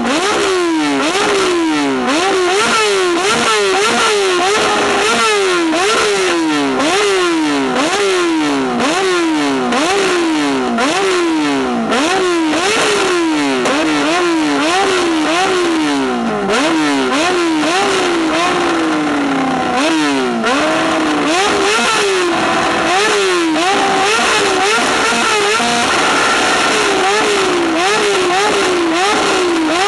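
Yamaha R6 inline-four sport bike on an aftermarket exhaust, revved over and over while stationary: each throttle blip shoots the revs up quickly and lets them fall back, a little more than once a second. Sharp crackles come from the exhaust as the revs drop, the popping that goes with flames from the pipe.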